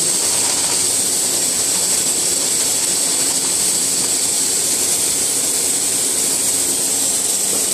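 A steady machine noise: a strong high hiss over a faint low hum, as of a colour sorting machine running.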